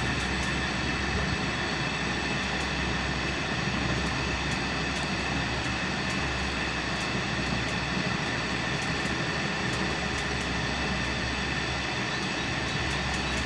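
Steady mechanical hum with a low electrical drone and a thin high whine, unchanging, as of an electric motor running.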